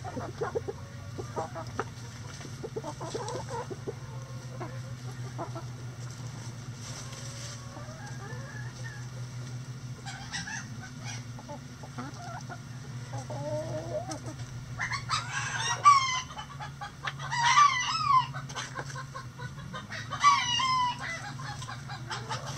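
Backyard chickens clucking softly as they forage, then three loud, pitched calls from the flock in the second half.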